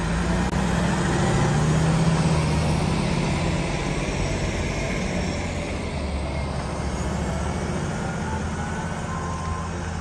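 Heavy diesel machinery running steadily with a low drone: a Liebherr 974 crawler excavator and the heavy-haul truck whose lowboy trailer it sits on.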